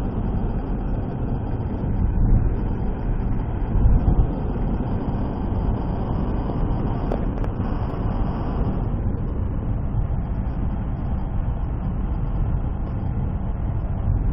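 Car being driven on the road: a steady, low rumble of engine and tyre noise.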